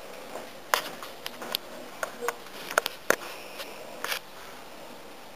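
A terrier puppy's claws clicking and tapping on a wooden floor as it walks, in irregular light taps over the first four seconds.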